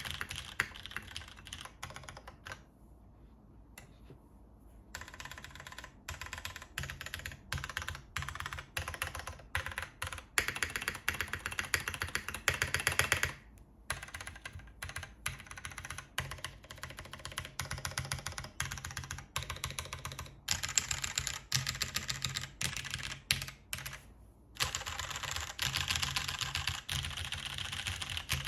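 Typing on a tenkeyless mechanical keyboard with MX Purple switches on a full aluminium plate, DCS-profile keycaps, on a felt desk mat: fast, dense runs of keystrokes. A pause of about two seconds comes a few seconds in, with brief breaks later on.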